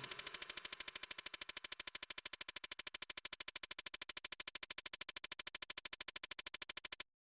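Electronic background music: a synthesizer pulsing in a fast even rhythm, about a dozen pulses a second, cutting off suddenly near the end.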